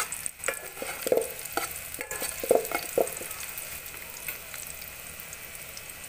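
Sliced red onions sizzling in oil in a metal pot. For the first three seconds a metal spoon stirs them, scraping and clicking against the pot, then only the steady sizzle is left.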